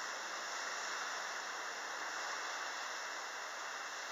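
A steady, even hiss with no distinct sounds in it.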